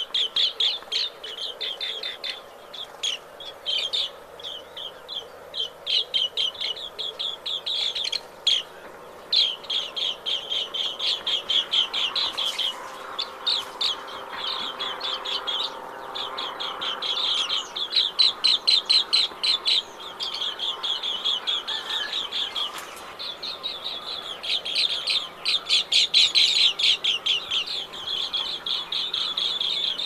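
Green bee-eaters calling: rapid trilling runs of high, clipped chirps, each run lasting a second or two, repeated with short gaps.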